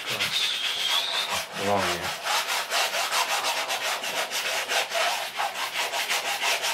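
Oil-paint-loaded brush scrubbing back and forth on a stretched canvas in quick, even strokes, laying in the base colour of the grass wet-on-wet.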